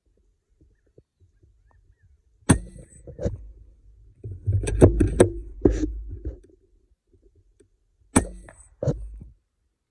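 Two shots from an FX Crown Mk2 .25 PCP air rifle, about five and a half seconds apart. Each is a sharp crack with a brief hiss, followed about half a second later by a softer knock. Between the shots comes a cluster of clicks and handling thumps over a low rumble.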